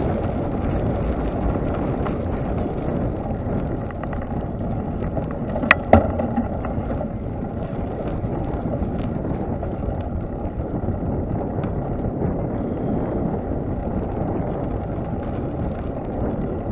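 Bicycle riding over brick paving: a steady low rumble of wind on the microphone and tyre noise, with two sharp knocks close together about six seconds in.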